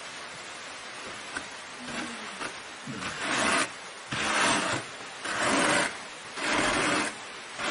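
Dyed sheep's wool rasping against the wire teeth of a hand card as it is carded and pulled off in repeated strokes, about one a second, starting about three seconds in. The wool is being blended into a new shade.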